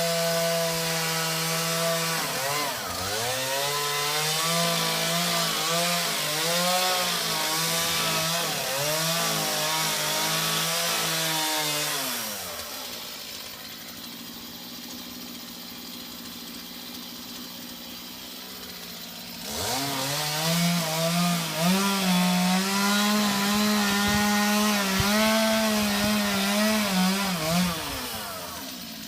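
Chainsaw cutting into a palm trunk, its engine note repeatedly dipping and recovering as it bogs under load. About 12 s in it drops back to a steady idle, then revs up again about 20 s in and resumes cutting.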